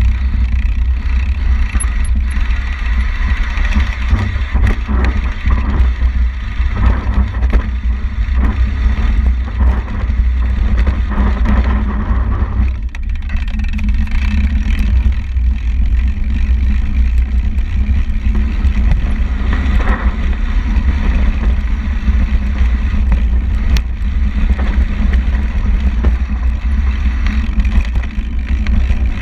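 Wind rushing over the microphone of a bicycle-mounted camera riding fast, a loud steady rumble, mixed with tyre noise on asphalt and scattered knocks and rattles of the bike over the rough, patched road.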